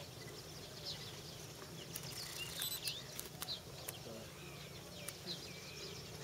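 Small birds chirping, many short high calls overlapping, with a few sharp clicks in the middle.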